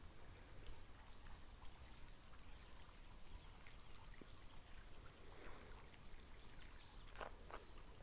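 Faint, steady trickling of a garden water fountain under a low rumble, with a couple of brief scuffs near the end.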